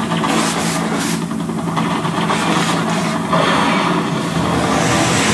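Steady engine hum with repeated short hissing bursts from effect jets spraying water and mist, turning into a continuous louder hiss a little over halfway through.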